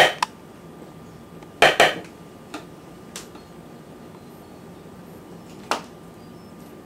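Spoon knocking and clinking against avocado skin and the clear plastic Tupperware Quick Chef bowl as avocado flesh is scooped out and tapped into it: a sharp knock at the start, two close together about a second and a half in, two small taps around two and a half and three seconds, and another knock near six seconds.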